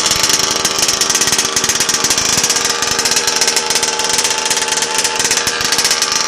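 Rovan 30.5cc two-stroke engine of a 1/5-scale RC buggy idling steadily during break-in, a fast, even run of exhaust pulses.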